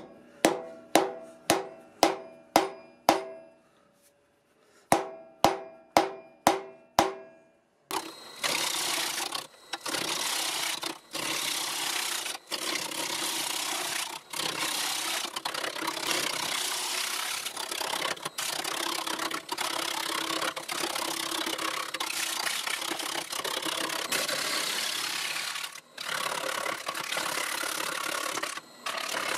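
Hammer blows knocking a steel spur drive centre into the end of a Leylandii log: two runs of sharp ringing strikes, about two a second. From about eight seconds in, a wood lathe spins the log while a gouge roughs it down, a steady rushing scrape of cutting broken by a few brief gaps.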